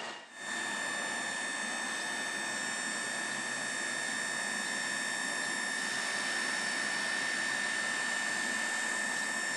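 Bombardier TRAXX E494 electric locomotive running, its electrical equipment and cooling fans giving a steady high whine made of several fixed tones over an even hiss.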